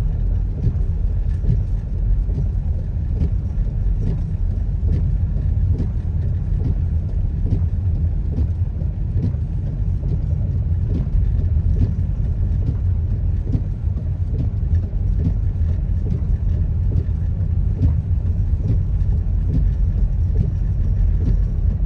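Car driving on a snow-covered road, heard from inside the cabin: a steady low rumble of tyres and engine, with faint scattered ticks.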